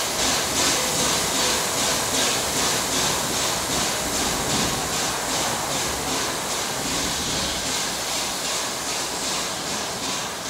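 Steam hissing loudly and steadily from 60163 Tornado, an LNER Peppercorn A1 Pacific steam locomotive, with a fast regular pulse running through the hiss.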